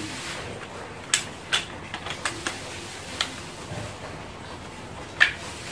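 Irregular sharp clicks and small knocks, about eight of them, with the loudest near the end, from hands working on a wall power socket and its wiring.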